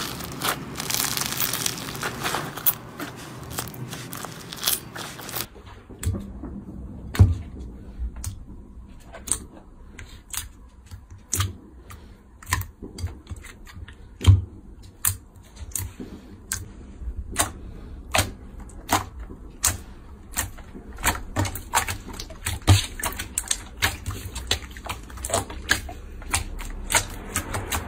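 Crunchy slime being squeezed and pressed, with a dense crackling for about the first five seconds. Then comes a run of sharp clicks and pops with soft thumps, about one or two a second, as slime is poked and pressed.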